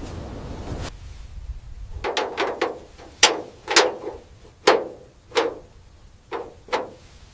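About nine sharp hammer strikes at an uneven pace, each with a short ring, after a rubbing, sanding-like noise that dies away in the first second or two.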